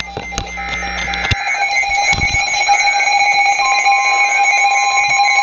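Several NOAA weather radios sounding their alert alarms together: steady electronic tones at different pitches, growing louder over the first couple of seconds. The weather radio warning tone, near 1 kHz, joins about three and a half seconds in. The alarms signal an incoming warning broadcast, here a severe thunderstorm warning.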